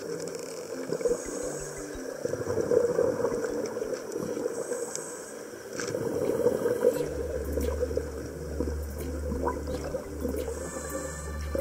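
Underwater water noise picked up by a camera in its housing: a steady gurgling rush with a few faint clicks. A low hum comes in a little past halfway.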